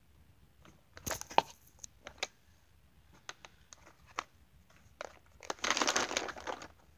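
Handling noise right at the microphone: scattered clicks and knocks of marker pens against a plastic case, then about a second of rustling and crinkling as a hand rummages through them near the end.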